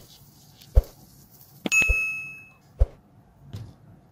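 A few soft thumps and a click, then a single bell ding that rings out and fades within a second: the sound effect of a subscribe-button animation.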